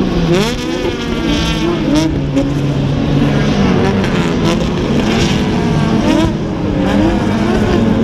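A pack of race cars passing on the track, several engines running at once. Their pitch rises and drops repeatedly as they accelerate and shift gears, with one rising sweep about half a second in.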